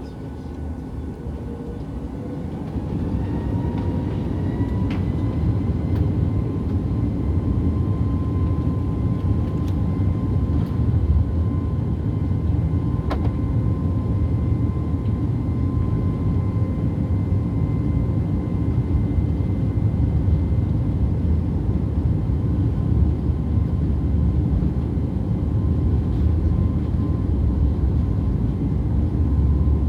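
Airliner engines heard inside the cabin, spooling up to takeoff power: a whine rises in pitch and the sound grows louder over the first few seconds. After that comes a steady, loud engine roar with a deep rumble, with the whine held at one pitch.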